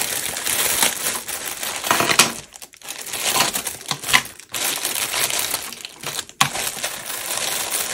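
Packaging crinkling and rustling by hand as a parcel is opened, going on nearly throughout with a few brief pauses.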